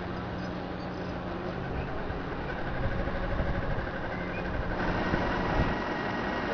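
An engine idling steadily with a low hum, growing somewhat louder and rougher about halfway through.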